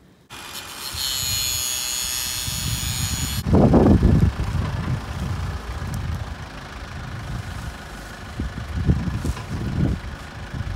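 Diesel engine of a Branson 5220C compact tractor running while its front loader lifts a tractor tire, with uneven louder surges in the engine sound. For the first three seconds or so a steady hiss with a high whine is heard instead; it stops abruptly.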